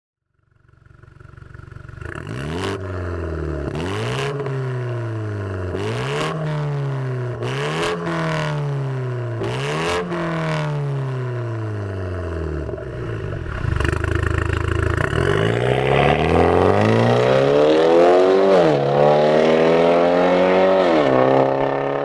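BMW 530i's B48 turbocharged four-cylinder running through a valved cat-back exhaust with quad tips and a downpipe. It is revved in about five quick blips, each falling back with sharp pops, then idles. It is then held at higher revs twice, with a brief drop between.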